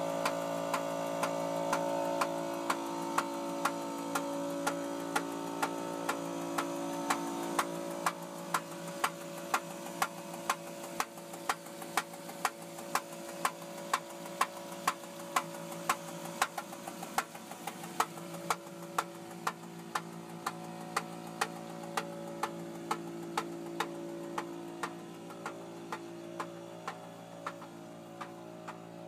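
A 2002 Dodge Intrepid's V6 engine running at a steady speed with a sharp, regular knock, about two a second, over the engine's steady hum. The owner takes it for engine knocking.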